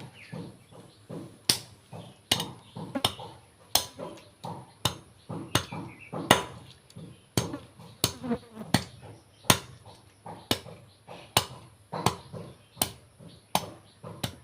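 Steady chopping: a knife or cleaver striking a cutting board, about one to two blows a second, each a sharp knock.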